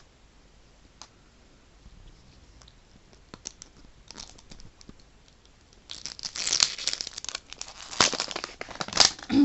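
Plastic wrapper torn and crinkled off a Mini Brands capsule ball, loud and continuous from about six seconds in; before that only faint handling clicks.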